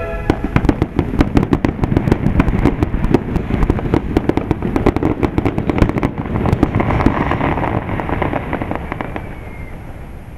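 Fireworks going off in a rapid barrage of sharp cracks and pops for about six seconds. The cracks then thin out and the sound dies away near the end.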